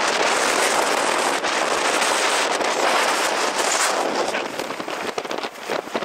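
Storm-force wind buffeting the camera microphone: a loud, dense crackling rush that turns gustier and more broken up near the end.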